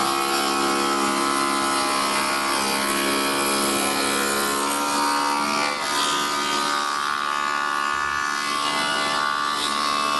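Spindle moulder running at speed, its profile cutter shaping the edge of a wooden workpiece fed along a template: a steady machine whine with the rasp of the cutter biting into the wood.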